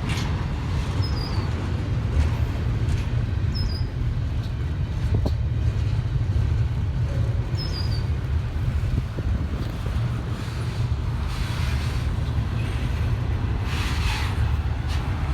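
Long CSX freight train rolling slowly past at close range, a steady heavy low rumble with occasional knocks from the cars. A few short high chirps sound over it.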